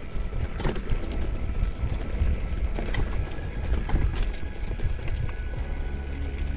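Mountain bike riding down a rough dirt trail: steady wind noise on the microphone over scattered knocks and rattles from the bike and tyres on the rough ground.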